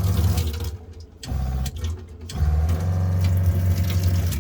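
Newly replaced boat fresh water pump running with a steady low hum. It cuts out under a second in, runs briefly, stops again, then runs again from about halfway: it is starting and stopping with the water demand, shutting off properly when the water is turned off.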